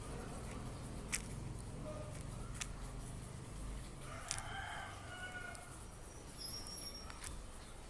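A rooster crowing faintly about four seconds in, with high chirps of small birds near the end and a few sharp clicks scattered through.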